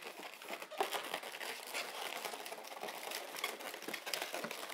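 Inflated yellow and white latex modelling balloons rubbing and creaking against each other as hands twist and press the bubbles into a duck's foot: a busy, irregular run of short rubbing noises.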